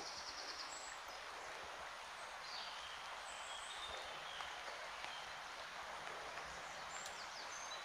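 Quiet woodland ambience with faint, scattered high-pitched bird calls and chirps.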